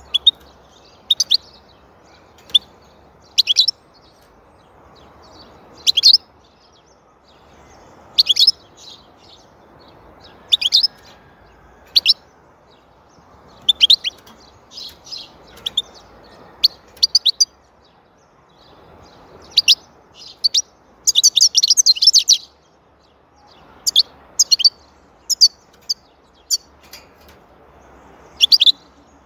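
European goldfinch singing in short bursts of high, quick twittering notes, every second or two, with a longer run of rapid twittering about two-thirds of the way in.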